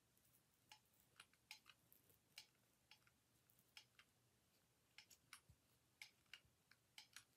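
Faint, irregular small clicks and taps from hands working craft materials at a table, heard over near silence.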